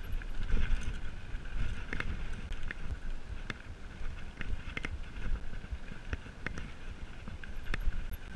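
Mountain bike riding over a dirt singletrack: a continuous low rumble from the tyres and frame on the ground, with scattered sharp clicks and knocks as the bike rattles over stones and bumps.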